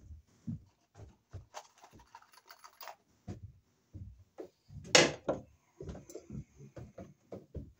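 Light, irregular knocks and taps of a hammer and hand tools worked against a steel breaker panel, with one sharper knock about five seconds in followed by a quick run of small taps.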